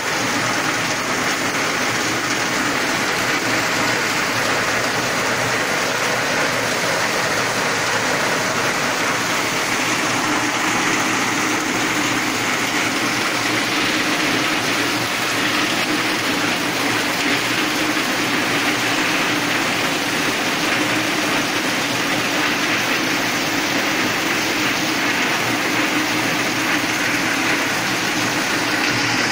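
Heavy rain falling steadily on corrugated metal roofs and foliage, with runoff pouring off a roof edge.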